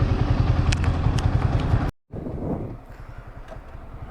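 Motorcycle engine running with a low, pulsing rumble, and a few sharp clicks over it. The sound cuts out abruptly about two seconds in, then resumes much quieter as engine and wind noise.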